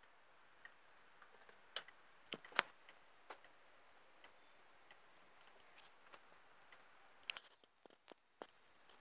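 Faint mechanical clicks and small, fairly even ticks over a low hiss, with a few louder clicks around two and a half seconds and again about seven seconds in: a VHS video recorder's mechanism working as the tape starts to play.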